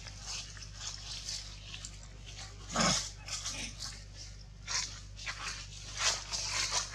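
Dry leaves crackling and rustling in short, irregular bursts as monkeys shift on the leaf litter, with louder crunches about three seconds in and again about six seconds in.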